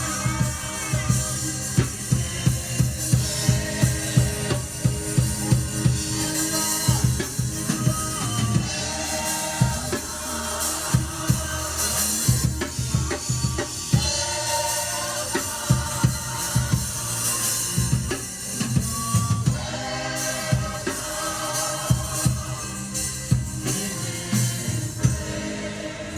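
Praise and worship music with a drum kit keeping a steady beat.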